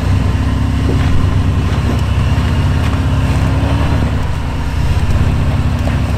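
Off-road SUV engine running at low revs while crawling over rocks, a steady low drone that dips slightly about four seconds in.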